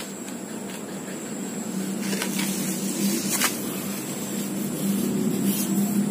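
A steady low motor hum that grows gradually louder, with a few soft clicks and scrapes of hands working loose compost into a metal tin.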